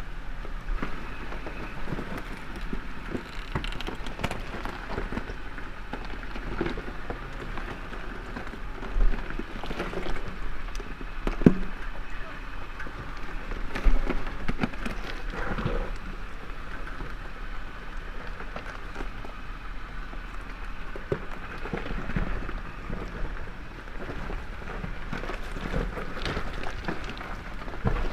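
Toyota 4Runner driving slowly over a rough off-road trail: a steady crackle of tyres crunching over rock and gravel with scattered knocks and clunks, a few louder knocks coming between about nine and fourteen seconds in.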